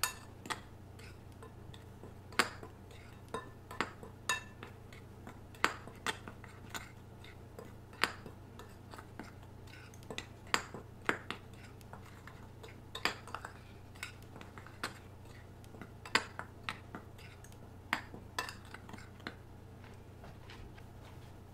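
A utensil clinking and tapping against a mixing bowl at irregular intervals, roughly once a second, as a dry flour and spice mixture is stirred together; the taps stop near the end.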